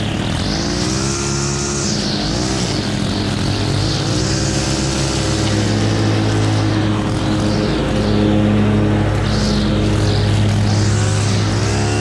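Stihl FS 91 R string trimmer's engine running at cutting speed, its pitch swinging up and down every second or two as the throttle is worked, while the spinning line cuts grass along brick edging.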